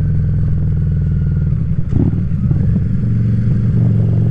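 Harley-Davidson Street Rod's 750 cc V-twin engine running steadily while riding, a deep, even engine note.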